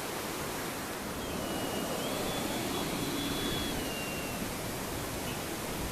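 Strong wind buffeting the microphone, with a thin high whine from an RC L-39 jet's electric ducted fan that comes in about a second in, steps up in pitch, holds, then drops back and fades past the middle.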